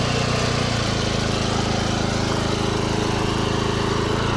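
Portable petrol generator running steadily at a constant engine pitch, powering the pipe-welding equipment.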